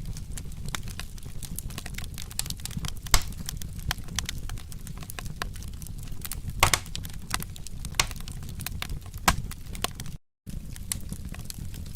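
Wood fire crackling and popping irregularly over a steady low rumble of burning, with a few louder pops. The sound drops out completely for a moment about ten seconds in, like a loop splice.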